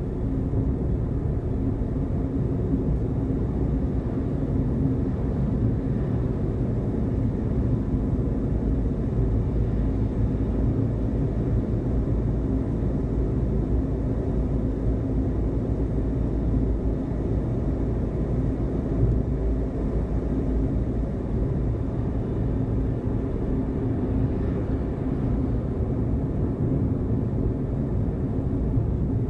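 A car driving: a steady low rumble of engine and road noise, with an even hum.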